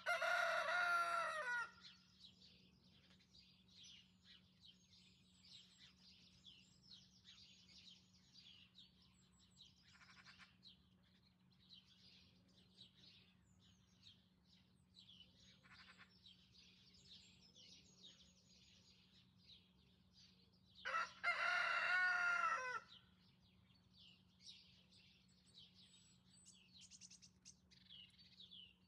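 A white rooster crows twice, each crow lasting about two seconds, once at the start and again about three-quarters of the way through. Small birds chirp and sing throughout.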